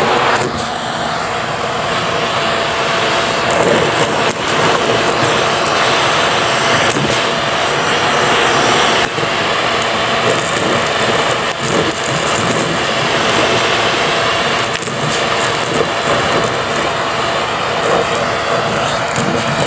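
A vacuum cleaner runs steadily with a brush attachment, sucking a pile of small hard debris off carpet. Scattered clicks and rattles come from bits being drawn into the nozzle over the motor and airflow noise.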